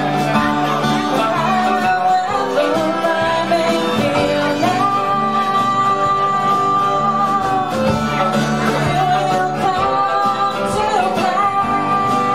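Live band playing, with violin and electric guitar under a woman singing; several long held notes ring out over the band.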